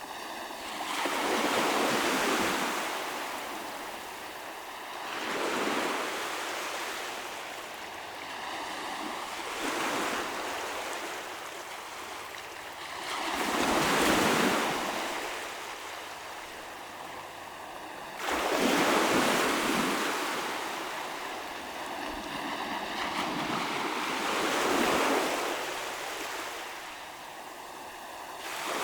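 Waves breaking on a shoreline, a surge of surf every four to five seconds that swells and washes back. One break about eighteen seconds in comes on more suddenly than the rest.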